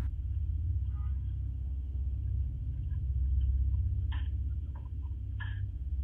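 Steady low rumble of room hum picked up through a doorbell camera's microphone, with a few faint taps about four and five seconds in.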